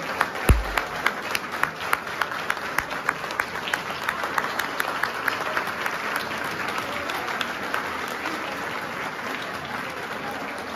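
A large crowd applauding, with sharp hand claps standing out in the first half; the clapping thins out and softens after about six seconds. A single low thump about half a second in.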